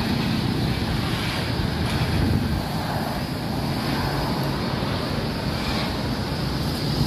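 Wind buffeting the microphone: a steady, rumbling rush of noise, heaviest in the low end.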